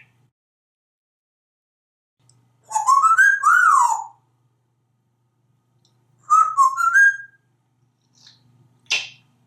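African grey parrot whistling: a phrase of rising and falling glides about three seconds in, a second shorter rising phrase about six seconds in, then a brief sharp chirp near the end.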